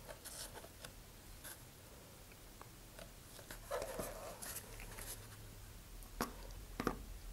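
Faint handling noise from gloved hands working epoxy into a cardboard rocket body tube: light rubbing and scraping with a few small taps and clicks, the sharpest two coming near the end.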